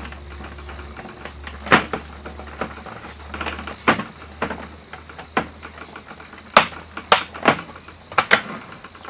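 Irregular clicks and knocks of hard plastic, about ten of them, as a Playmobil toy ambulance's rear door is pressed and worked into place on the body, with repeated tries at getting it to snap in.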